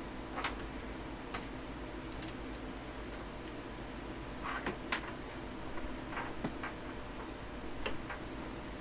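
Irregular light taps and clicks as a kitten paws at small objects on a desk, knocking a plastic pen and a rubber toy about, over a steady low hum.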